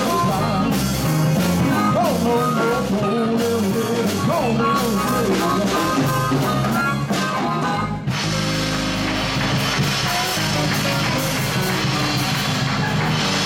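Live blues band playing: electric guitars and drum kit, with a harmonica bending notes through a microphone. About eight seconds in the playing changes to a denser, more sustained sound with cymbal wash, and the harmonica drops out.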